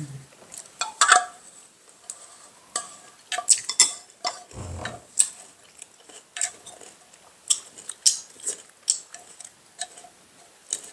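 Spoon and chopsticks clicking and scraping against ceramic bowls and a small metal bowl during a meal, in irregular light clinks, with one soft low thud about halfway through.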